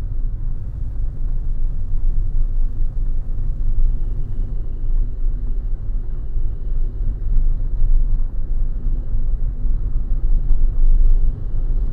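Steady low rumble of a car on the road, heard from inside the cabin: engine and tyre noise while driving.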